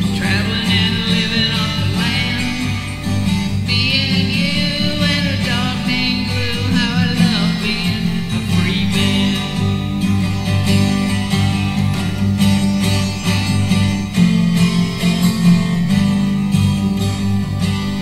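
Music: a 12-string acoustic guitar playing an instrumental passage of a country-folk song.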